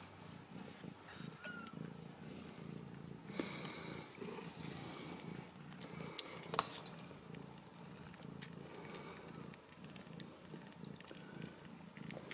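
Ragdoll mother cat purring steadily while nursing her newborn kittens, with a few faint high squeaks and soft clicks over the top.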